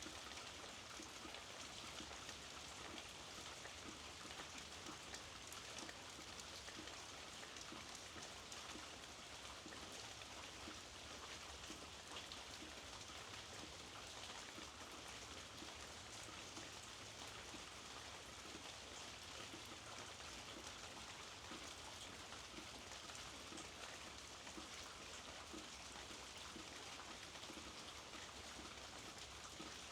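Steady rainfall, drops pattering on surfaces, soft and even throughout.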